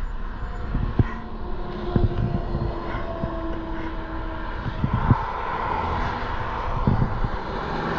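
Road traffic passing: a steady engine hum, then another vehicle approaching with rising tyre and engine noise toward the end. Wind gusts thump on the microphone.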